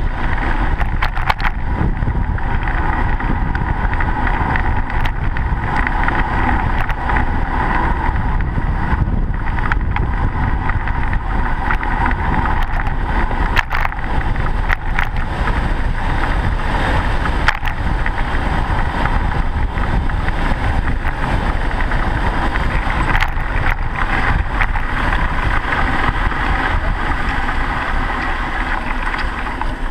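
Steady wind and road rumble from a bicycle-mounted camera riding along a snowy city cycle lane, with a few sharp clicks or knocks now and then.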